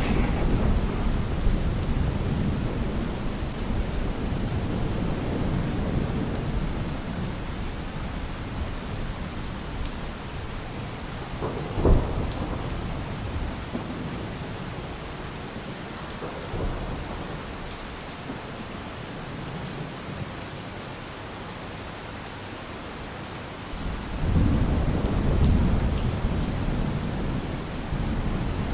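Steady rain falling, with thunder rumbling low at the start and again near the end, and one sharp crack about twelve seconds in.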